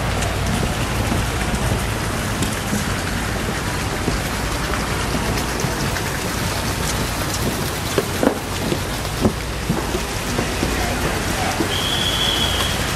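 Steady hiss of water, rain or splashing floodwater, over a constant low rumble. There are a few short knocks about eight to nine seconds in, and a brief high steady tone near the end.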